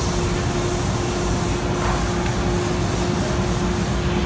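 Steady, fairly loud background noise, an even hiss with a constant low hum under it. A run of faint light ticks, about three or four a second, sits in the middle.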